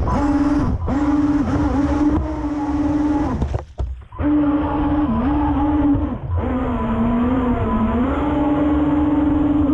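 Electric drive motor of a Pro Boat Riverine Patrol Boat RC model whining at speed, heard up close from its onboard camera over a rush of water and wind. The pitch steps up and down with the throttle, and the motor cuts out briefly about four seconds in before coming back.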